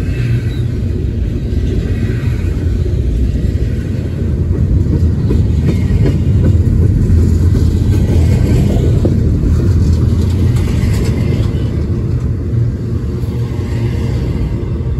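Double-stack intermodal freight train's well cars rolling past, a steady low rumble of steel wheels on the rails.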